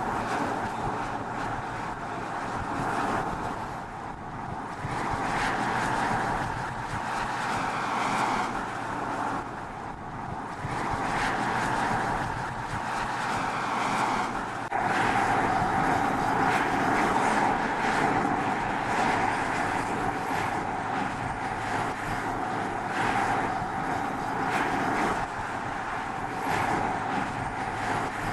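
BMW 440i coupe's turbocharged inline-six and tyres at road speed: a steady driving noise that gets louder about halfway through.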